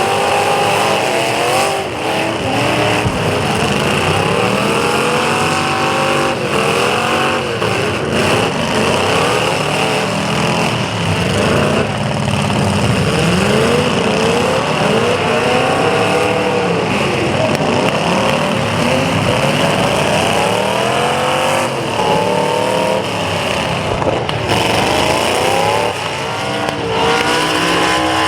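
Several demolition derby car engines revving up and down at once as the cars accelerate and back up, with a few sudden crashes of car hitting car along the way.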